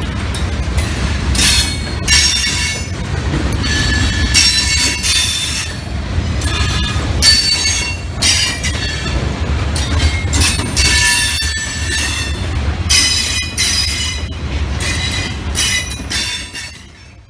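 Freight cars of a mixed CSX freight (boxcars and tank cars) rolling past with a steady low rumble, their steel wheels squealing in repeated high-pitched bursts every second or so as the train takes a crossover from one track to the other.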